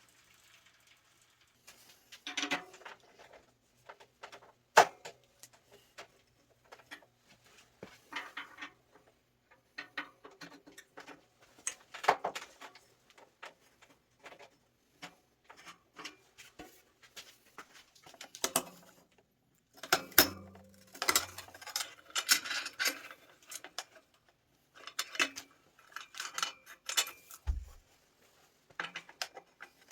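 Intermittent clinks, taps and rattles of metal tools and bicycle parts being handled during a bike teardown, with a brief low hum about twenty seconds in and a short low thump near the end.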